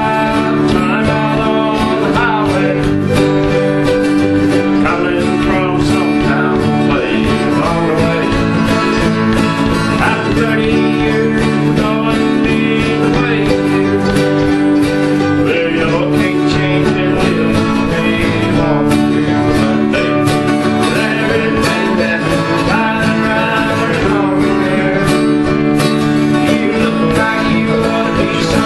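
Acoustic guitars played together in a steady country tune, strummed chords with picked notes over them.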